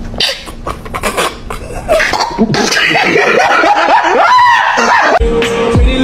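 A man laughing hard in a rising run of voiced bursts. Just before the end, music with a thumping beat starts.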